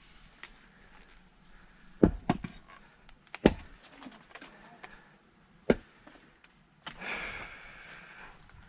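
Sharp wooden knocks from splitting firewood by hand with an axe: a handful of single strikes with pauses between them, the loudest about two, three and a half and nearly six seconds in.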